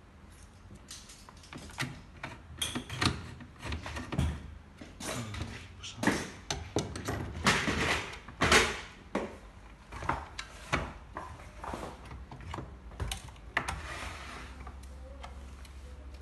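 Irregular clicks, knocks and scrapes of hands and a screwdriver working on the opened plastic housing and internal parts of a Medtronic IPC endoscopy power console, busiest in the middle.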